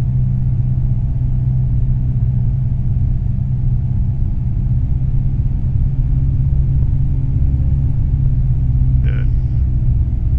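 Cessna 172M's four-cylinder Lycoming O-320 engine and propeller droning steadily in flight, heard loud from inside the cockpit.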